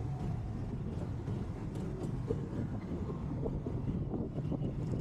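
Steady low engine rumble mixed with wind noise on the microphone, with a few faint knocks.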